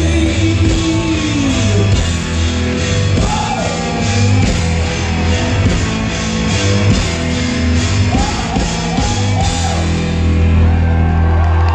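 Live rock band playing, with bass, drums and keyboards and a male voice singing at times. The cymbals stop near the end as the song winds down.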